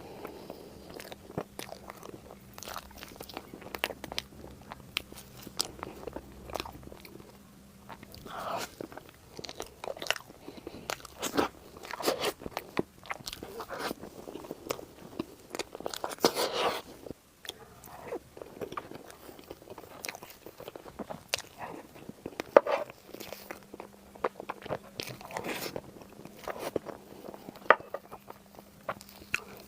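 Close-miked eating of Chinese food: repeated bites, crunches and chewing with many sharp clicks and crackles, coming in louder clusters.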